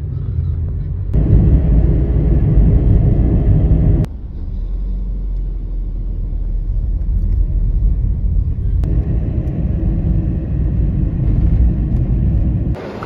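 Low road and engine rumble inside a moving car's cabin, in short clips spliced together, so the sound changes abruptly several times.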